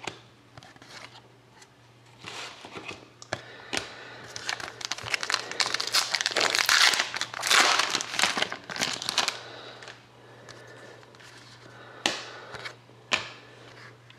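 Trading-card pack wrapper being crinkled and torn open by hand, crackling loudest in the middle, with a few sharp clicks near the end.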